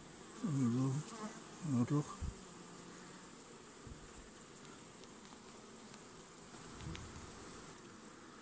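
Honeybees buzzing around an open hive, with two louder hums that bend in pitch in the first two seconds, as of bees flying close past.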